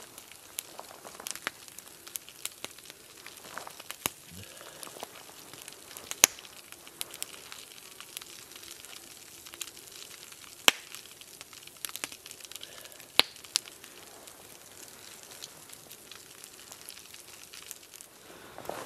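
Wood campfire crackling, with scattered sharp pops; the three loudest come about six, eleven and thirteen seconds in.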